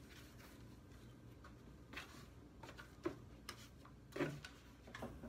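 Faint handling sounds of fabric being pressed and slid along a cardboard strip: a few short, separate rustles and light taps, the loudest about four seconds in.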